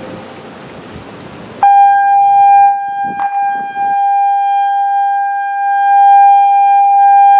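Genasys LRAD DS-60XL speaker arrays sounding the steady, single-pitch attention tone of an outdoor emergency warning system. The tone starts abruptly about one and a half seconds in, after a steady background hiss.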